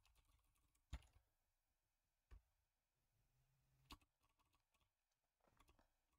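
A few faint, isolated computer keyboard keystrokes about a second and a half apart, with near silence between them.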